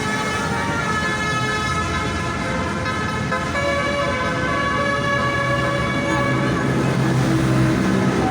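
A bus's multi-tone 'basuri' air horn playing a tune in long held notes that step from pitch to pitch, over vehicle noise.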